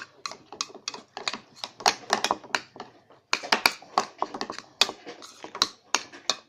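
A spoon stirring slime mixture in a bowl, clicking and tapping against the sides in quick, uneven strokes as the glue, soap and activator are blended until the slime starts to set.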